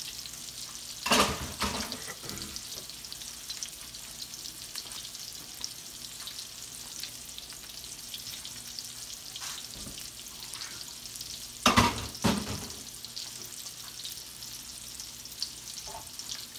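Salmon patties frying in shallow vegetable oil in a skillet: a steady sizzle, with two short bouts of clatter, about a second in and again about twelve seconds in.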